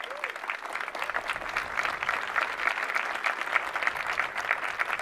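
Audience applauding: many people clapping at once, starting suddenly and keeping up a steady rattle of claps.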